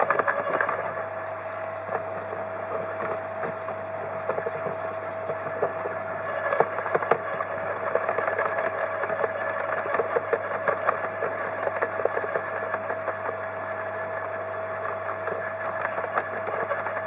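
Electric garden shredder running with a steady whine, its blades crackling and snapping as branches are fed in and chipped. The crackling gets thicker about six seconds in and again a few seconds later.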